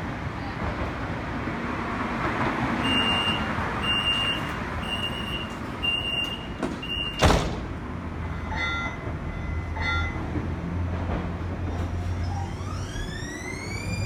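Siemens S70 light-rail train at the platform: a door-closing warning of five short beeps about a second apart, then the doors shut with a sharp loud knock. Two short beeps follow, and near the end the traction motors start a rising whine as the train pulls away.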